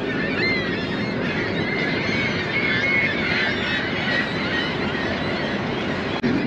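Many waterbirds from a nesting colony calling over one another in short, overlapping cries, over the steady rumble of highway traffic on the bridge overhead.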